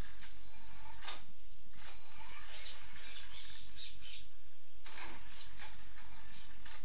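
HSP 94118 Pro electric RC rally car driving on a tiled floor: the electric motor and drivetrain whine high-pitched in repeated surges as the throttle is worked, with two brief lulls, about one and a half seconds in and near the middle.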